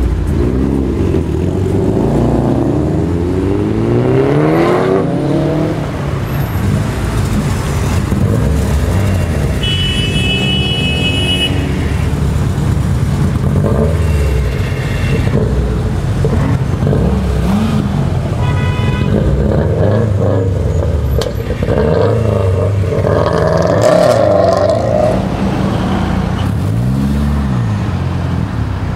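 Cars accelerating away one after another, engines revving up and falling back as each pulls off and passes, a Mitsubishi Lancer Evolution X among the first. A horn sounds briefly about ten seconds in.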